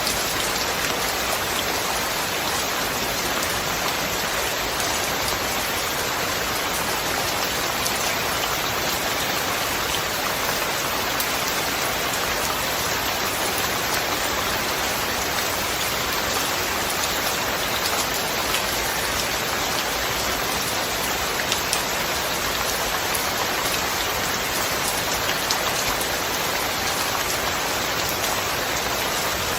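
Steady rain falling: an even hiss with many fine drop ticks, no thunder.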